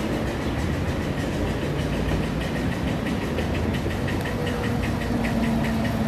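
Small gas engine of a 12-inch-gauge ride-on trolley car running steadily as the car approaches, growing a little louder near the end, with a quick run of light clicks from about two seconds in.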